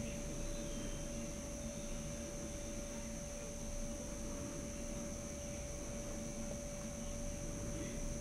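Steady background hum with a constant mid-pitched tone and a thin high whine above it, over low rumbling noise.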